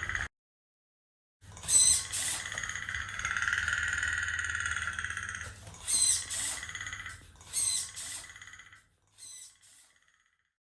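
Small hobby servo motor whining in several short bursts, with one longer run, as the motion-triggered spray mechanism is tested.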